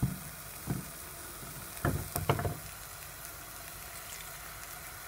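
Oil sizzling steadily under potato-and-minced-meat patties frying in a shallow pan. There are a few soft knocks about two seconds in.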